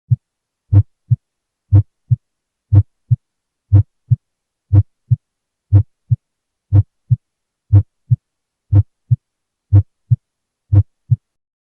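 Normal human heart sounds heard through a stethoscope: a lub-dub pair once a second. The first heart sound is slightly louder than the second and is minimally split, the mitral closure just ahead of the tricuspid, which is a normal variation.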